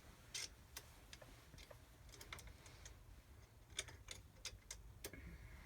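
Faint, irregular clicks and taps of small metal tools and parts being handled while a screw is tightened during 3D printer assembly, over a low room hum.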